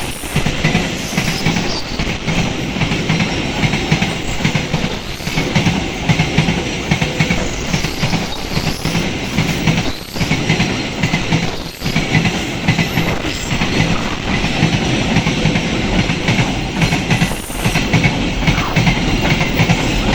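A train passing close by, its wheels running over the rails with a steady, loud rumble and clatter.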